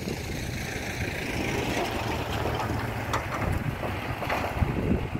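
Wind buffeting the microphone outdoors: a steady, uneven low rumble with a higher hiss over it.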